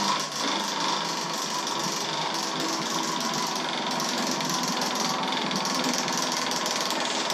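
Prize wheel spinning fast, its pointer flapper clicking rapidly against the pegs around the rim in a steady ticking rattle.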